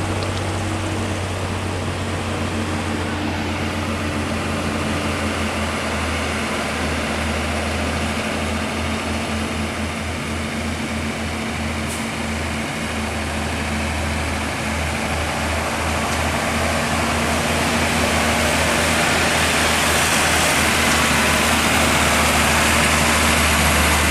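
Heavy truck diesel engine running with a low, pulsing rumble, getting louder in the second half.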